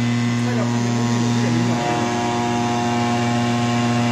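CNC router's spindle motor running, turning a polishing disc against a flat slab: a loud, steady electric hum, its low tone shifting slightly about two seconds in.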